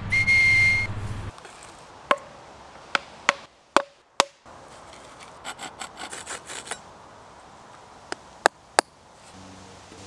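A whistle carved from a green branch blows one short, steady high note. Then come a series of sharp wooden clicks and knocks and a quick run of small saw strokes on a stick.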